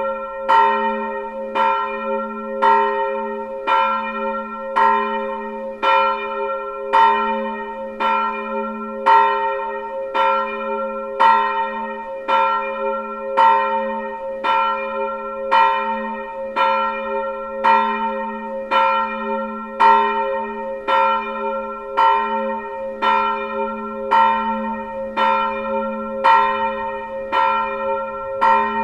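A single swinging church bell tuned to A-sharp (Ais1) is rung alone. Its clapper strikes about once a second, and the low hum of the bell rings on steadily between the strokes.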